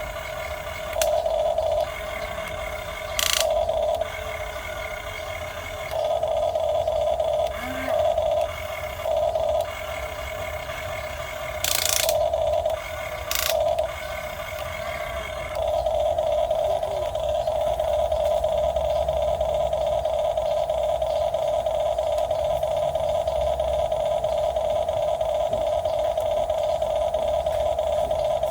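Huina 1550 RC excavator's electric gear motors whining in short stop-start bursts as its arm and bucket are worked, then running continuously from a little past halfway. A few brief sharp scraping sounds come in between.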